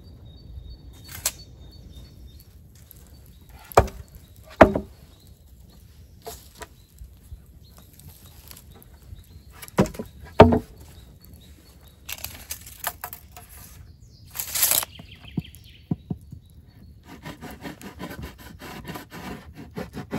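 Wooden knocks and clatter: two pairs of sharp, loud knocks, then clusters of smaller clicks, and near the end a quick, even run of scraping clicks, as of wood being struck and worked by hand.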